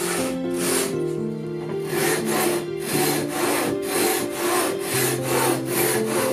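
Japanese double-edged pull saw (ryoba) cutting through red cedar 2x2 in quick, regular strokes, about two a second, with background music underneath.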